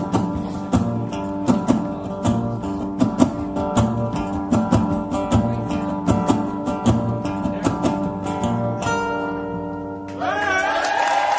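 Acoustic guitar strummed in a steady rhythm through the song's instrumental ending, closing on a final chord that rings out about nine seconds in. About a second later the audience starts to cheer and applaud.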